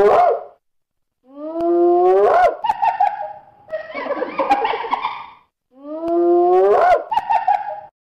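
Hyena calling: drawn-out whoops that rise in pitch, each trailing into short choppy notes, with a stretch of rapid, broken, giggling calls in the middle.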